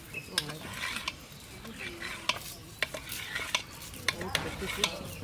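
Hand-cutting blocks of boiled egg on bonti blades (curved blades fixed to a foot-held stand): a soft scraping with irregular sharp clicks and taps of blade, egg and steel trays, about a dozen in all.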